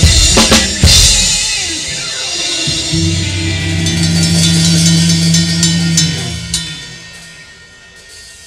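Live ska reggae band with drum kit closing a song: a few sharp drum and cymbal hits in the first second, then a held final chord with bass and ringing cymbals that fades away over the last few seconds.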